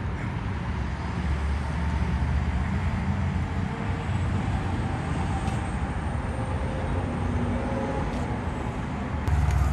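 Steady road traffic noise, a low rumble of vehicle engines and tyres, growing heavier near the end.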